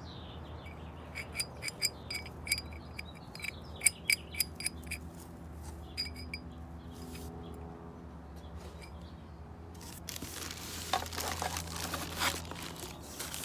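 Light metallic clicks and clinks, each with a brief ring, as the furnace's metal burner tube and air-regulator fitting are handled, coming in quick irregular runs for a few seconds. From about ten seconds in, plastic packing wrap crinkles as it is pulled in the box.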